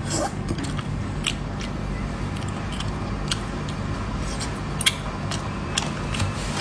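Mouth sounds of eating spicy sea snails: the meat is sucked out of the shells and chewed, with scattered sharp smacks and clicks, the loudest near the end. A steady low hum runs underneath.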